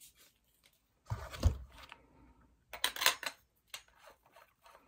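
Handling noises as a barrel is fitted onto a Planet Eclipse paintball marker: a dull thump about a second in, a scraping rattle around three seconds, then a sharp click and a few light ticks.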